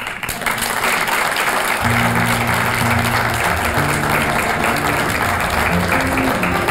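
Audience applauding steadily at the end of a talk. About two seconds in, background music with low held notes comes in under the clapping.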